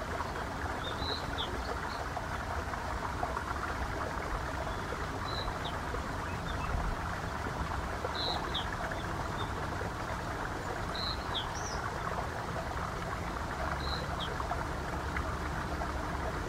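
Nature ambience: small birds give short chirps every few seconds, often in pairs, over a steady rushing hiss like flowing water.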